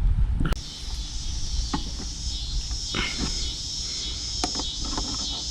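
Insects chirring steadily in a high buzz that sets in about half a second in, with scattered light clicks and knocks over it.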